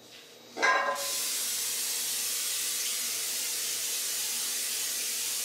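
Aerosol cooking-oil spray can sprayed in one long, continuous hiss of about four and a half seconds while greasing a metal loaf pan. A brief voice-like sound comes just before the spray starts.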